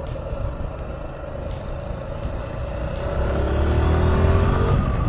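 Motorcycle engine running as the bike pulls away and accelerates. Its pitch rises and it grows louder over the last two seconds.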